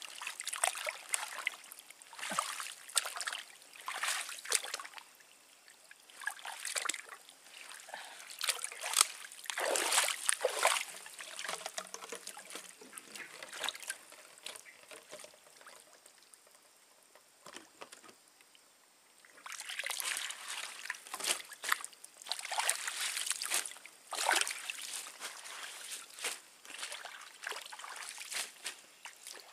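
Water sloshing and splashing in irregular strokes as a person wades through deep stream water, with a lull of a few seconds a little past the middle.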